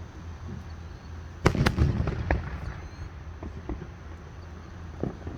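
Fireworks going off: a sudden loud bang about a second and a half in, then a quick flurry of crackling pops that thins out to scattered pops.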